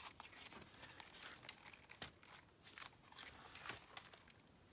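Faint sticky crackles and clicks of butter slime, made with Model Magic clay, being squeezed and stretched by hand.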